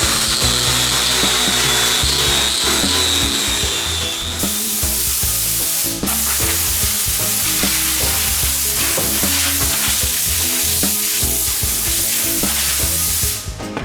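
Power tool working wood: a high whine for the first few seconds, then a loud, steady hiss that cuts off near the end, over background music.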